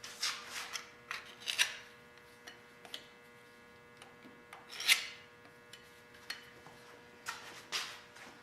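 Irregular scraping and rubbing of hand tools on metal machine parts, with small clicks and a sharper scrape about five seconds in, over a steady electrical hum.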